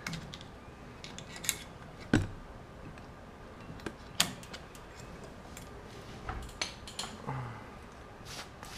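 Light metallic clicks and clinks of brake pads and small metal parts being handled by hand, a dozen or so at irregular intervals, while the pads are fitted to a Wilwood brake caliper.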